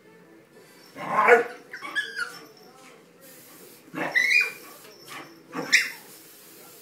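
Two dogs playing rough, a bull terrier and a small puppy, giving about four short bursts of yips and barks.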